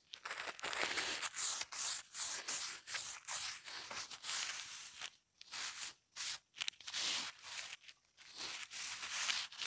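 Crumpled paper towel rubbing and crinkling across a steel flat-top griddle in short, repeated wiping strokes with a few brief pauses, wiping up leftover grease and oil after scraping.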